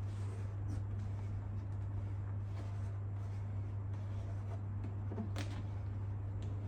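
A steady low hum with faint rustling and light taps from hands smoothing a vinyl decal onto a plastic motorcycle fairing, and one sharper click about five seconds in.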